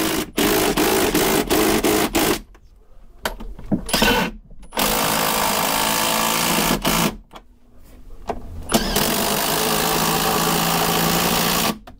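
Ryobi cordless drill boring bolt holes through a boat's timber frame, run in three bursts of about two to three seconds each with short pauses between.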